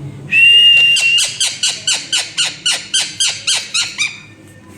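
Pet parrot calling: one held high note, then a fast run of about fourteen short, repeated squawking notes, about four a second, fading toward the end.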